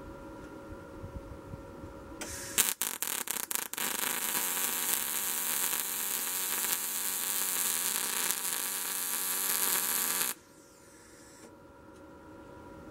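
MIG (wire-feed) welder arc on a steel frame: a few stuttering pops as the arc strikes, then a steady sizzling crackle for about seven seconds that stops abruptly.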